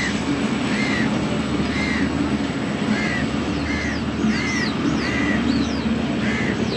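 Crows cawing repeatedly, roughly once a second, with a few high, falling chirps from smaller birds in the middle, over a low steady hum.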